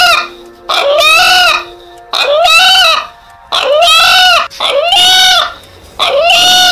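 White rooster crowing in short, repeated calls, about six of them, each under a second long and rising then falling in pitch.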